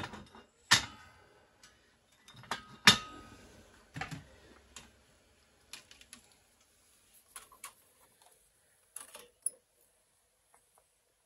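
Broken cast-metal sewing-machine pieces clanking and clinking against the steel bed of a hydraulic shop press as they are handled and set in place. A few sharp metal knocks come in the first four seconds, then lighter clicks and taps.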